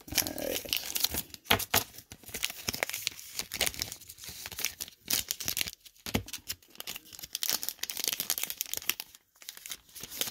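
Plastic card sleeves and a hard plastic card holder being handled: irregular crinkling and rustling with small clicks and taps.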